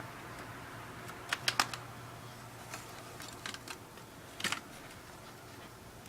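Sharp little clicks and taps of plastic laptop parts being handled and fitted together, coming in small groups, over a faint steady low hum.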